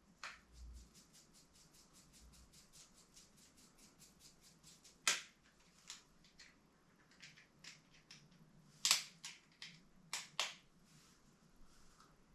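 Small clicks and taps of long-nose pliers and metal parts against a plastic RC axle while a ball nut is being tightened. It begins with a quick, even run of faint ticks, about seven a second, then gives way to a dozen sharper, irregular clicks, the loudest about nine seconds in.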